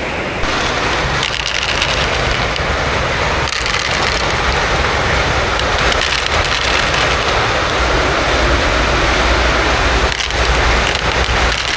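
Heavy rain falling, a loud, steady, dense patter with a crackling texture.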